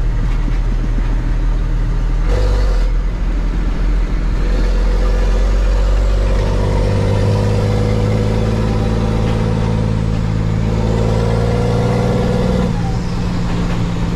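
Diesel engine of a 2000 Freightliner day cab truck pulling under acceleration, heard from inside the cab. Its pitch steps up about six seconds in and drops back near the end, and a steady higher whine runs over it from about two seconds in.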